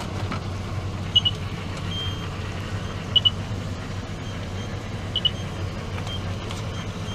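A vehicle engine idles with a steady low hum, while a high electronic warning beeps in quick pairs about every two seconds.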